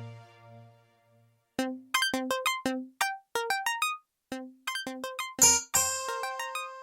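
Kurzweil PC3K7 keyboard playing a preset from its sound library. A held tone fades out in the first second; after a short silence come short struck notes in a quick, irregular melodic run, thickening into chords with held notes in the last second and a half.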